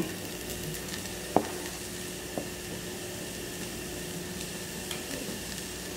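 Diced onions frying in a small nonstick pan with a steady sizzle, while a silicone spatula scrapes chopped turkey sausage in from a plastic cutting board. A single sharp knock about one and a half seconds in.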